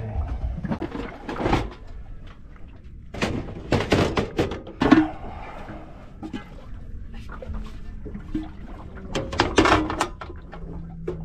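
Barbecue griddle plate being handled and fitted into a boat-mounted barbecue: several spells of clattering and knocking, loudest about five seconds in.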